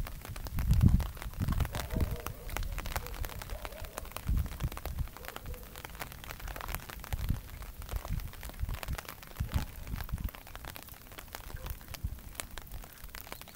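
Rain falling, with scattered ticks of drops, heard through a phone's microphone. Irregular low thumps on the microphone come and go, the loudest about a second in.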